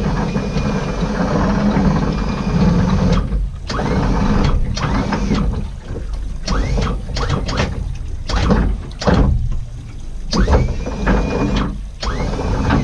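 Bar Crusher 490C plate-aluminium boat running under way: a steady outboard rumble with repeated knocks of the hull through the chop and wind noise.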